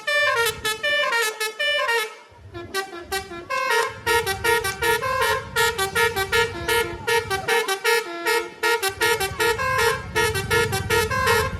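QQ Trans bus's basuri telolet horn playing a fast, jumping melody of short toots, over the low rumble of the bus's engine.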